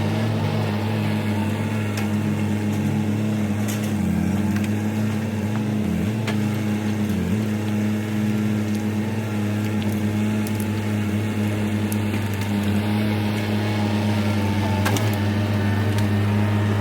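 Diesel engine of heavy land-clearing equipment running steadily at high throttle, its pitch dipping briefly a few times when it takes load. A few sharp clicks or snaps sound over it.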